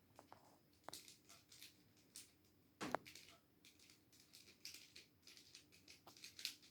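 Faint, irregular clicks and scrapes of a 3x3 mirror cube's layers being turned by hand, with one louder click about three seconds in.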